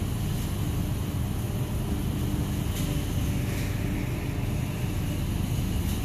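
A steady low rumble with a faint, even hum above it, unchanging throughout.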